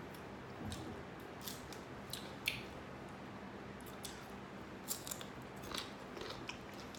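Crisp green mango being peeled by hand and bitten: scattered sharp snaps and crunches at irregular intervals.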